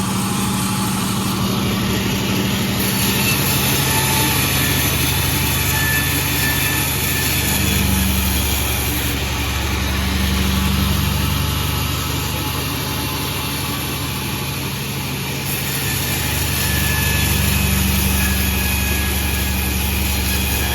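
Pandan36 sawmill running with a steady engine note. Its level swells and eases several times, about four seconds in, around eight and ten seconds, and again near the end.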